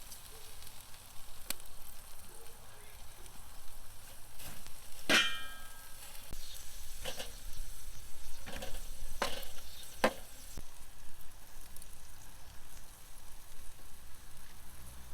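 Food sizzling on a hot grill pan for Korean barbecue, a steady hiss broken by several sharp clinks of utensils against the pan; the loudest, about five seconds in, rings briefly.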